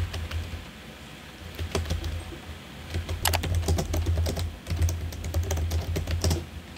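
Typing on the keys of a Doqo Maglev keyboard case for a Samsung Galaxy tablet: a quick, uneven stream of key clicks that grows louder and busier about halfway through.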